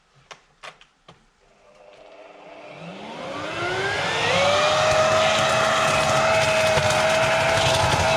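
A few clicks, then the electric motor of a Black & Decker BEBLV301 garden vacuum-blower starts and spins up, with a rising whine and a growing rush of air that settle into a steady full-speed hum about four seconds in.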